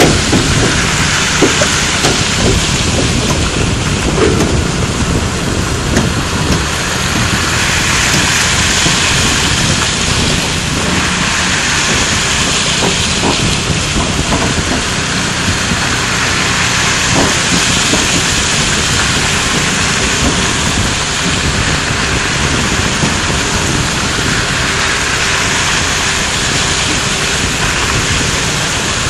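The tyres of a long road train's multi-axle trailers, loaded with steel rails, rolling past over gravel: a steady crunching rumble with no let-up, and a few light knocks in the first seconds.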